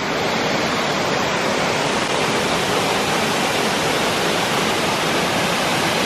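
Steady rush of water pouring down a tall rock-slide waterfall.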